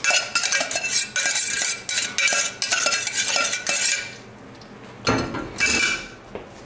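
Metal spoon scraping and tapping sautéed garlic and green chilies out of a small stainless saucepan onto fried chicken wings in a stainless steel bowl: quick repeated scrapes and clinks for about four seconds, then a shorter burst of the same handling noise about five seconds in.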